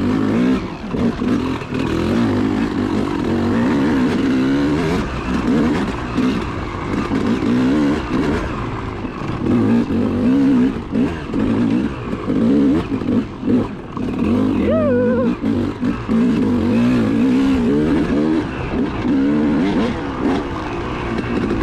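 Yamaha 250 two-stroke dirt bike engine running hard, its pitch rising and falling constantly with the throttle as the bike is ridden over rough trail, with wind and rattle noise on the helmet microphone.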